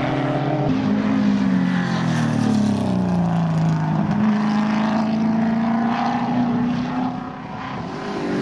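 Group A touring race car engines heard from trackside. The engine note drops in pitch over the first few seconds, holds steady at constant revs, then dips in level briefly near the end.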